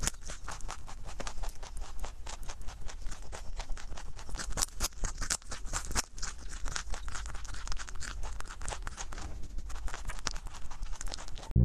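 A rabbit chewing carrot close to a microphone: fast, continuous crunching and crackling clicks.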